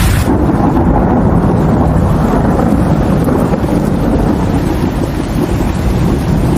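Monsoon rainstorm ambience: a deep, steady rumble under the rain. The bright hiss drops out suddenly about a third of a second in, leaving it muffled.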